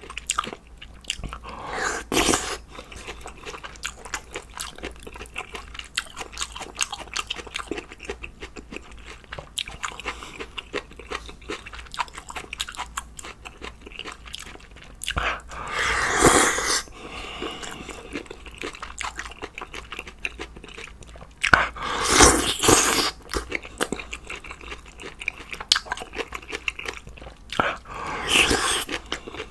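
Close-miked eating of stew with ramen noodles: steady chewing and mouth smacks, broken four times by louder, longer spells of slurping noodles.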